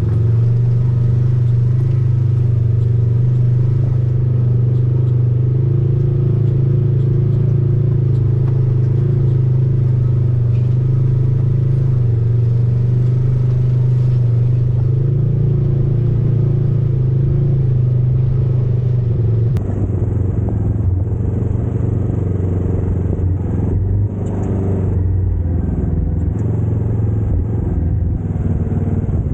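Side-by-side UTV engine running steadily while driving on a dirt trail. The sound changes abruptly about two-thirds of the way in, the upper range suddenly cut away.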